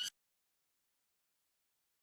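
A high, unidentified whistling sound with several stacked tones cuts off abruptly right at the start, then total silence.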